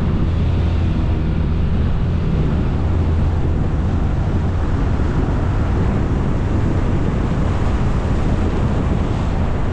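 Motorcycle riding along at steady speed: wind rushing over the microphone over the low, steady hum of the engine, which is clearest in the first few seconds.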